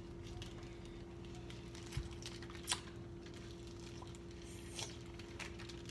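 A few scattered clicks and taps of plastic wrapping being handled at a sink. The sharpest click comes near the middle, all over a steady low hum.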